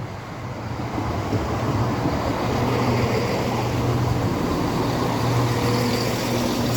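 Class 170 Turbostar diesel multiple unit's engines running close by, a low steady drone that grows louder over the first couple of seconds and then holds.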